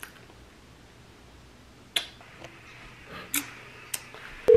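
A few sharp clicks, the loudest about two seconds in and two more near the end. Right at the end a loud, steady phone tone starts: an incoming-call sound.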